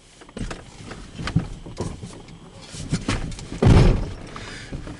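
Clicks and knocks of things being handled, with one heavy low thump about three and a half seconds in.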